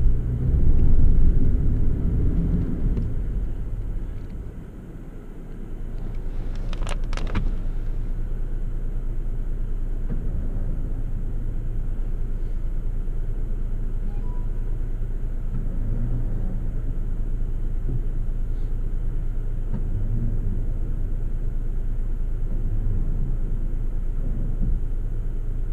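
Toyota FJ Cruiser's V6 engine and drivetrain heard from inside the cabin while it works through snow. It is loudest in the first couple of seconds and drops off about four seconds in, then runs steadily with slight rises and falls in pitch. There are two sharp clicks about seven seconds in.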